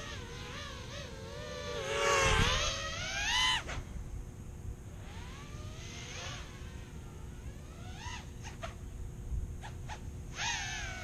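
Quadcopter's electric motors and propellers whining, the pitch swooping up and down as the throttle changes. Loud about two seconds in, fainter through the middle, loud again near the end.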